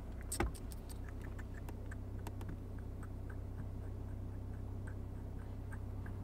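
Inside a car: a faint, regular light ticking, about three ticks a second, over a steady low hum, with a single knock about half a second in.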